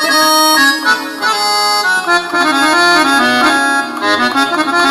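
Harmonium patch on a Roland XPS-30 keyboard synthesizer, built from General MIDI tones, playing a quick phrase of reedy held chords and changing melody notes, with reverb on the sound.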